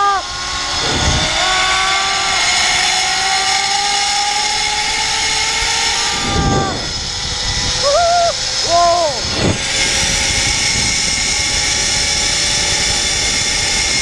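Rushing wind on the microphone of a rider speeding down a zipline, with the trolley's pulleys on the steel cable giving a thin whine that slowly rises in pitch. A few short, higher tones come about eight and nine seconds in, with occasional low buffets of wind.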